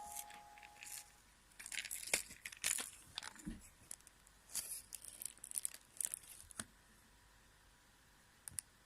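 Faint crinkling, tearing and small clicks of packaging being handled and opened, in scattered bursts over a few seconds, after the tail of music fades out at the start.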